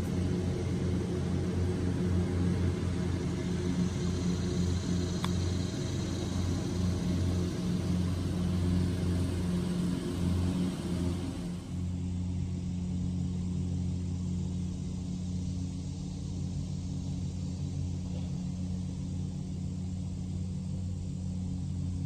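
Steady low hum of a distant engine, with a single sharp click about five seconds in.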